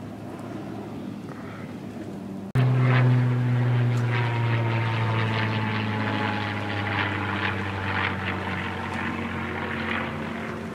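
Propeller airplane droning overhead, a steady engine drone whose pitch sags slowly as it passes. It is quieter at first, then jumps abruptly louder about two and a half seconds in.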